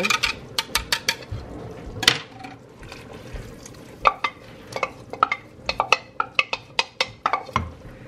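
A whisk and spoon stirring a milk-and-flour mixture into boiling potato soup, clinking and scraping against a plastic measuring cup and a stainless steel pot: a few quick clicks at the start, a sharper knock about two seconds in, then a run of clinks from about four seconds on.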